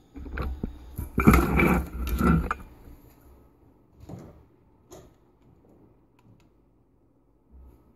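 Handling noise: rustling and knocking as the camera phone is moved, loudest in the first two and a half seconds. It is followed by two light clicks about four and five seconds in.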